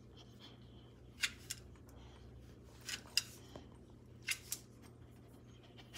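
Three pairs of faint, sharp clicks, each pair about a third of a second apart, over a low steady hum.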